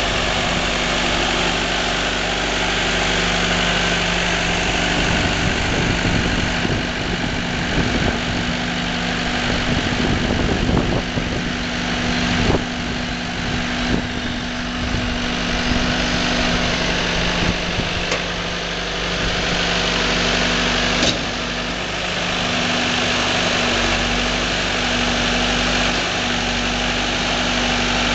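Firewood processor running, its engine holding a steady note, with irregular knocks and clatter through the middle and a single sharp click later on.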